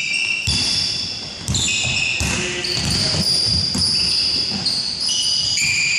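Basketball shoes squeaking on a hardwood court, many short high-pitched squeals one after another, over low thuds of the ball bouncing and feet landing.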